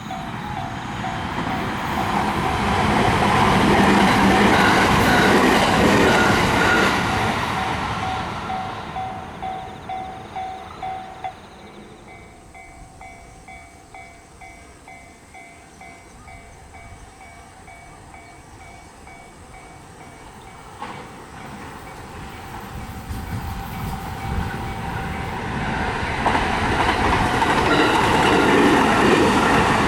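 Japanese level-crossing warning bell dinging steadily while a train passes through the crossing. The train is loud at first, its wheels clack over the rail joints, and then it cuts off suddenly. Near the end another train's rumble builds up and grows loud.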